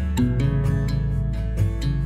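Background music led by an acoustic guitar, plucked notes over a steady low bass.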